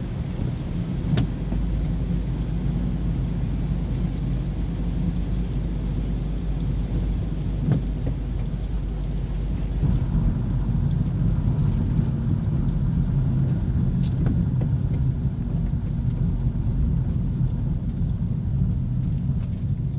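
Car driving slowly on a rain-soaked road, heard from inside the cabin: a steady low rumble of engine and tyres on wet tarmac, with a few faint clicks.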